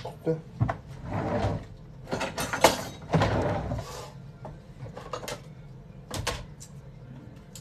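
Kitchen handling noises: a string of knocks, clicks and clatters with stretches of rustling and scraping, as things are moved about and cupboards are opened and shut. The sharpest knock comes about two and a half seconds in.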